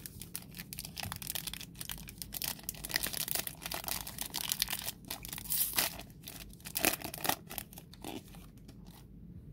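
Foil wrapper of a Panini Select UFC trading-card pack being torn open and crinkled by hand: a long, crackling rustle that thins out near the end.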